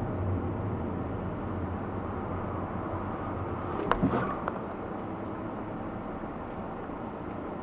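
Steady low rumble of a car's engine and tyres while driving, picked up by a dashcam inside the cabin. A couple of brief sharp clicks come about four seconds in.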